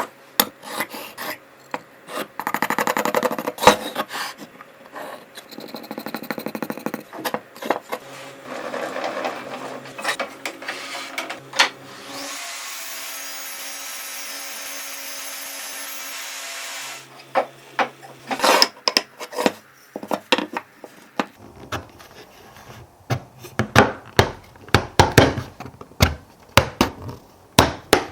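Woodworking sounds of cutting and fitting an X-shaped wood joint: passages of scraping and rubbing on wood, then a power saw, most likely the table saw, running steadily for about four seconds midway, followed by a run of sharp wooden knocks and taps as the pieces are fitted together.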